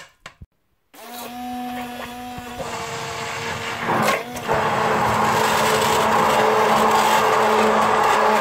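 SilverCrest hand blender running in a pot of cooked butternut squash, leek and carrot, puréeing it. The motor starts about a second in with a steady hum. From about four and a half seconds it runs louder and rougher as the blades churn through the chunks.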